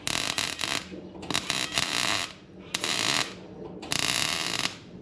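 Wire-feed welder laying a series of short welds: four bursts of steady crackling arc noise, each lasting under a second, with brief pauses between them.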